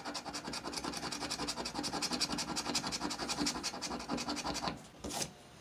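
Scratch-off lottery ticket being scratched in rapid back-and-forth strokes, about ten a second, stopping near the end with one last short scrape.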